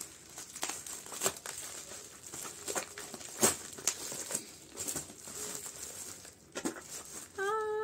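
Plastic bubble-wrap packaging crinkling as it is cut with scissors and pulled apart, in irregular sharp crackles.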